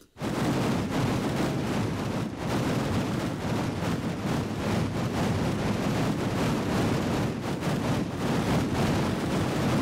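Rendered battlefield ambience: a dense, steady wash of overlapping gunfire and explosions with no sound standing out. It is one battlefield recording repeated many times around a ring at the same distance, so every copy plays at the same volume and the mix sounds flat, without depth.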